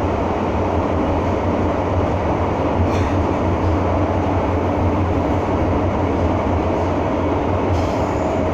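Running noise inside a moving MTR M-Train carriage: a steady low rumble of wheels and traction with a low hum, and a faint click about three seconds in.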